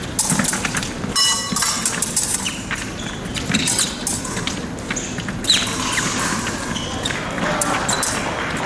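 Épée fencers' footwork on the piste, quick steps and stamps with sharp clicks of blades meeting, and a brief ringing metallic tone about a second in.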